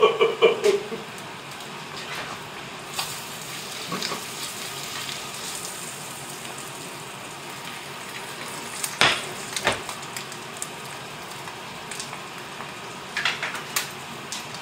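Egg frying in butter in a cast-iron pan: a steady sizzle, with two sharp knocks about nine seconds in.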